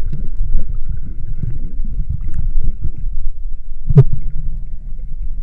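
Muffled, uneven low rumble of water and wind noise, with one sharp knock about four seconds in.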